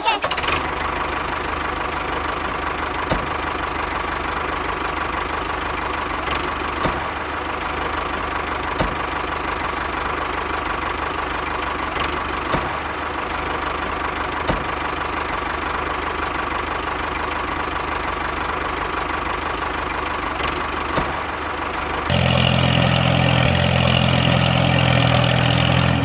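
Mini tractor's small motor running steadily, with a light click every couple of seconds. Near the end it changes to a louder, deeper hum.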